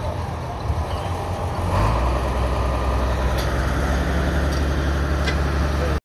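Engine of a rail track-laying machine running steadily, louder from about two seconds in, with a few clicks over it.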